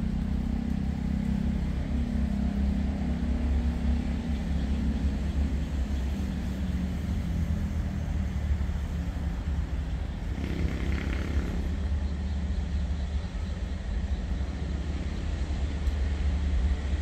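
Alsthom diesel-electric locomotive's engine running hard as it revs up to pull a freight train away: a deep, steady rumble.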